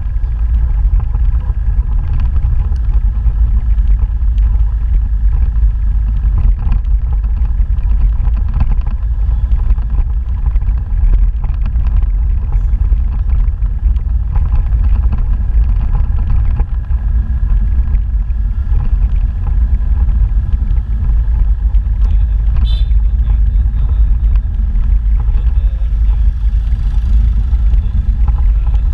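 Motorbike ride heard from on board: a steady engine drone under a heavy, unbroken rumble of wind on the microphone. A brief high-pitched sound cuts through about three quarters of the way in.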